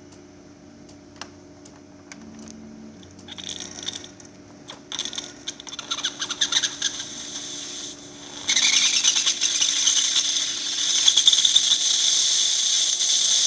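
DeLonghi Magnifica XS steam wand opening: several seconds of spitting and crackling, then about eight and a half seconds in it breaks into a loud, steady hiss of strong steam. The steam function works after the main board replacement.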